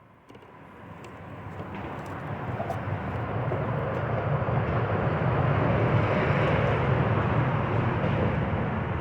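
A vehicle passing, its rumbling noise building steadily over about six seconds and then holding loud.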